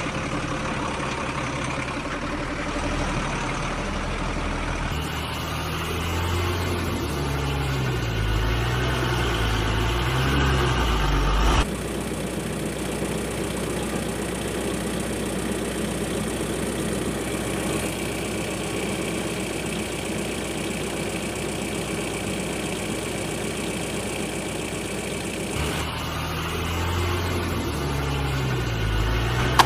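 Truck engine sound effect running steadily, its pitch wavering up and down as it revs in two stretches, the first cutting off abruptly about twelve seconds in.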